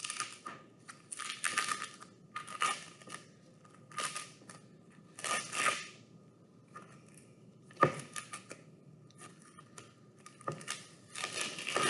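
Tape being peeled off a screen in a series of short ripping strips, about one every second or so, with a sharp click about eight seconds in.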